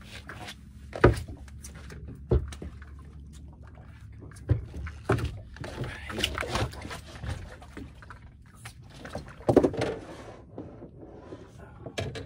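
Sharp knocks and thumps on a small fishing boat, several scattered over the seconds, the loudest about a second in and near the end, over a low steady rumble, as a hooked redfish is brought aboard.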